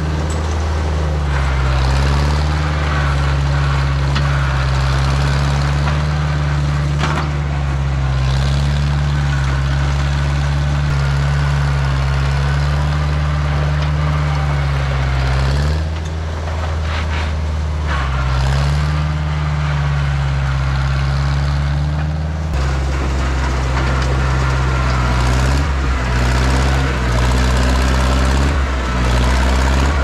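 John Deere 1010 crawler bulldozer's carbureted engine running steadily while pushing dirt and concrete rubble, its note dipping several times as it lugs down under load and recovers, with a few knocks from the rubble. The engine is running poorly, which the owner blames on dirt in the carburetor.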